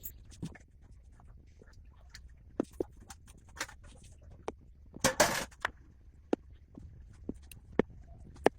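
Small, sharp clicks and taps of tools on the parts of a 1953 Tissot watch, irregular and scattered, with a brief louder scraping rustle about five seconds in.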